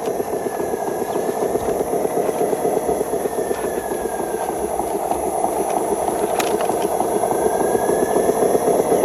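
Radio-controlled model dump truck running: a steady, fast-pulsing motor sound that grows slowly louder.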